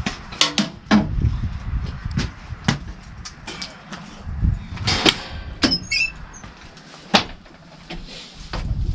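A string of separate knocks and clicks, about a dozen spread irregularly, over a low rumble, with a brief high squeak about six seconds in.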